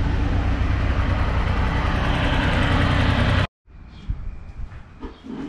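Motorcycle running steadily at low speed in traffic, its engine mixed with wind and road noise on the mic. It cuts off abruptly about three and a half seconds in, leaving quiet room sound with a few faint knocks.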